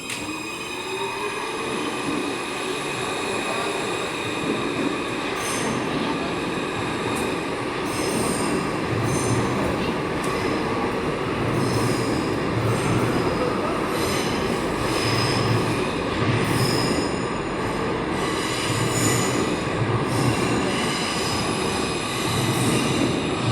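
Metro train pulling away and gathering speed: the motor whine glides upward at the start, then a steady rumble with high-pitched wheel squeal, growing louder.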